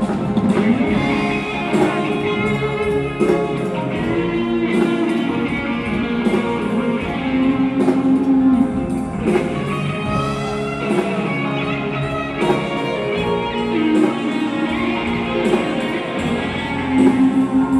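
Live band music through the PA in a large concert hall, heard from the audience, with guitar to the fore.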